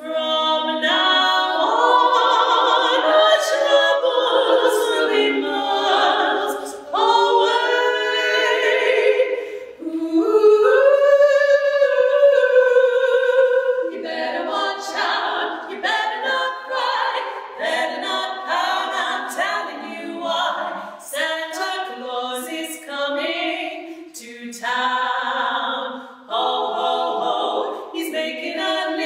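Three female voices singing unaccompanied in close three-part harmony. A long held chord about ten seconds in gives way to quicker, shorter phrases.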